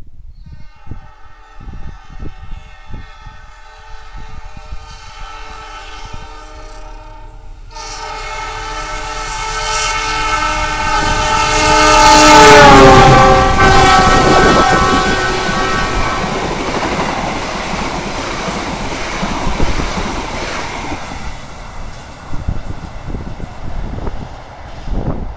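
Argo Wilis express train passing at speed behind a diesel locomotive. Its multi-tone air horn sounds on the approach, growing much louder, then drops in pitch as the locomotive goes by about twelve seconds in and stops a few seconds later. The carriages then rush past, and the noise fades toward the end.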